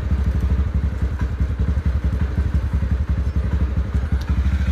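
TVS Ntorq 125 scooter's single-cylinder engine idling steadily, with a few faint metallic clicks from a T-wrench working on the battery terminal.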